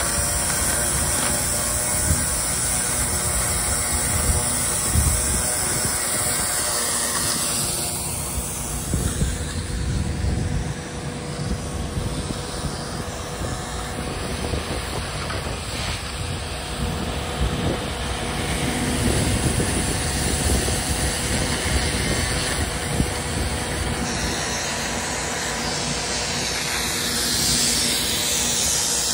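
A pressure-washing rig's engine running steadily under the hiss of high-pressure water from a rotary surface cleaner on concrete. The balance of engine and spray changes abruptly a few times.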